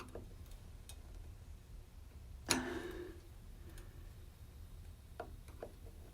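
A screwdriver working a water heater's thermostat dial: a few light clicks and one sharp metallic clink with a short ring about two and a half seconds in, over a low steady hum.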